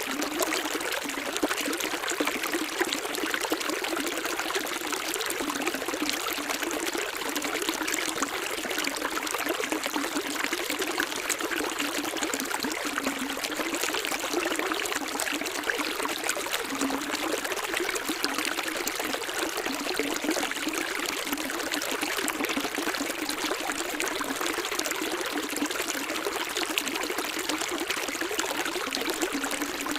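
Running water: a small stream flowing steadily, trickling without pause.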